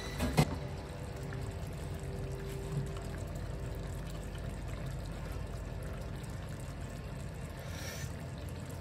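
Stew simmering in a large pan on an electric hotplate, a soft, steady bubbling, with one sharp click about half a second in.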